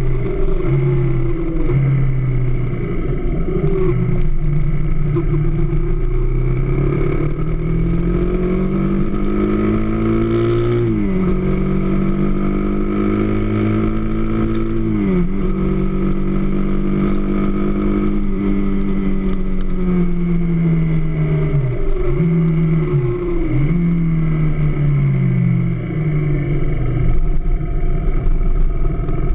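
AKT DS 200 motorcycle's single-cylinder engine running, its speed climbing steadily and then dropping sharply, twice in the first half, then holding high before dipping and settling lower near the end.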